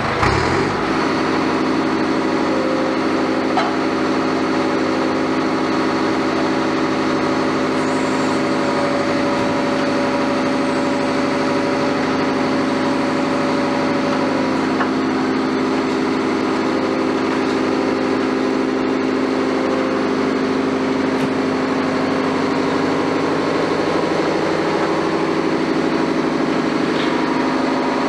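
Liebherr 924 wheeled excavator's diesel engine and hydraulics running steadily under load while it lifts a heavy wall panel; the engine note rises slightly about three-quarters of the way through.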